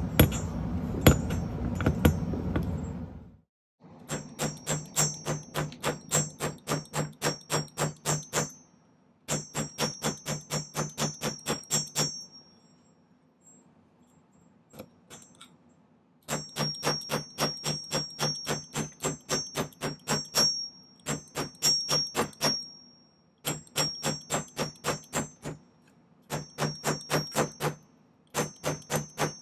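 Jeweller's texturing hammer tapping sterling silver wire on a steel bench block, texturing the wire to look like bark. The light, ringing metal strikes come in fast runs of about three a second, broken by short pauses.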